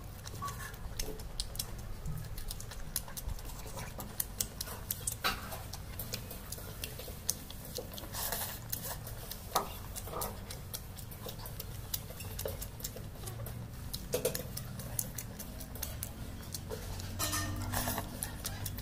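Close-up eating by hand: chewing and lip smacking on fish and water rice, a string of small irregular wet clicks with a few louder smacks. A steady low hum runs underneath.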